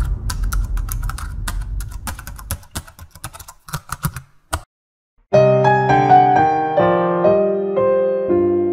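Typing sound effect, a quick irregular run of key clicks over a fading low rumble, stopping after about four and a half seconds. After a brief gap, electric piano music begins about five seconds in.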